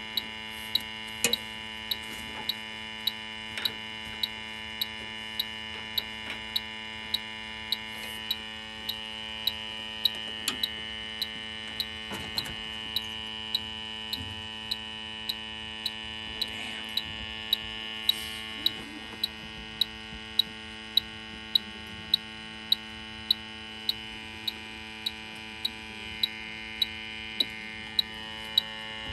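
Bacharach H-10 electronic refrigerant leak detector ticking steadily, a little under two ticks a second, as it searches for refrigerant, over a steady hum.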